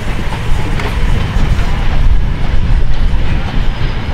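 Vintage passenger coaches of a steam train rolling past at close range: a loud, low rumble of wheels on the rails with scattered clicks.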